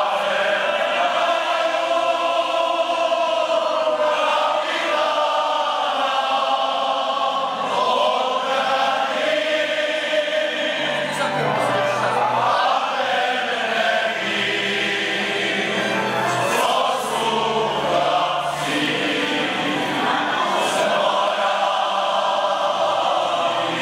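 Men's folk choir singing together, a slow song with long held notes.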